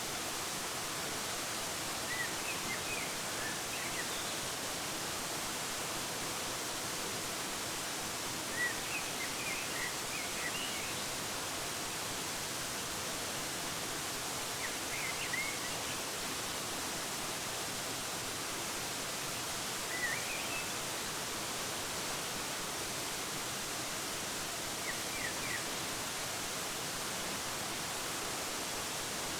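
Waterfall running with a steady, even rush of falling water. Small birds chirp in short clusters of high notes every five or six seconds.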